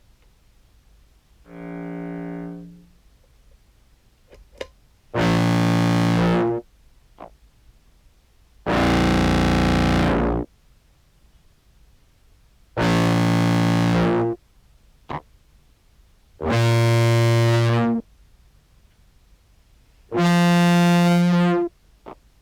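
Sampled contrabass clarinet playing single low notes through an effects pedal chain: six separate notes of about a second and a half each, with pauses between them, the first one quieter. Faint short clicks come in the gaps: the clarinet's key noise still coming through at the attack.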